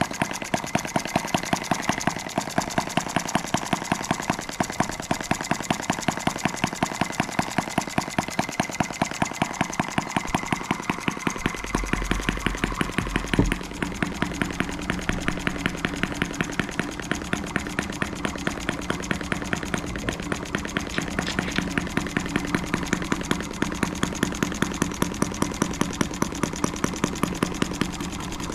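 Model M12B single-cylinder overhead-valve four-stroke model engine idling at a very low speed, firing in an even, steady rhythm of sharp pops. About twelve seconds in a deeper hum joins the firing.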